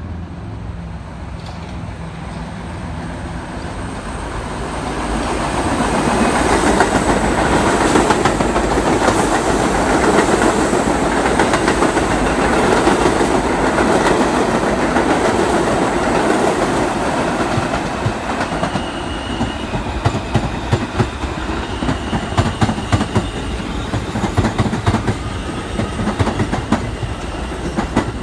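New York City Subway R68 train approaching and running close past on the platform track: a rumble that builds to a loud pass, then eases off as its wheels click in quick, regular succession over the rail joints, with a faint high whine partway through.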